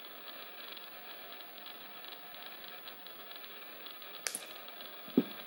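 Light handling of round nose pliers and metal rhinestone cup chain over faint room hiss: a short sharp click about four seconds in, then a soft low thump near the end.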